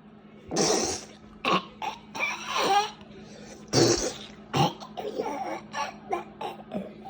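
A child's play-acted coughing and choking: a string of short, harsh bursts, the loudest about half a second in and again near four seconds, with a longer strained gasp in between.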